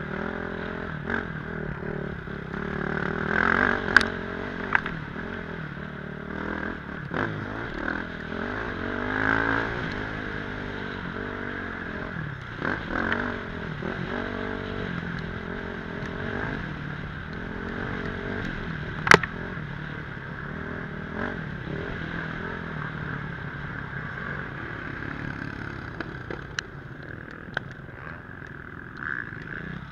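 KTM 450 dirt bike's single-cylinder four-stroke engine revving up and down, rising and falling with the throttle and gear changes while riding on a rough dirt track. Two sharp knocks stand out, one early and one a little past the middle, and there is scattered clatter from the bike over the rough ground.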